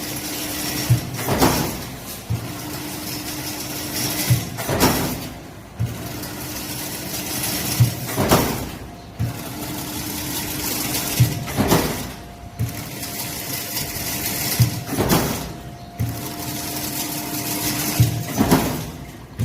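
Automatic double diamond-mesh (chain-link fence) weaving machine running, repeating its cycle about every three and a half seconds: each cycle a burst of clatter with sharp clicks, over a steady motor hum.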